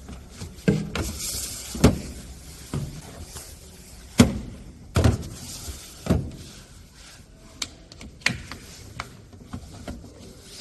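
Irregular plastic knocks, thunks and clicks as a water purifier's filter cartridge is pulled out and a new one fitted, with a brief hiss about a second in.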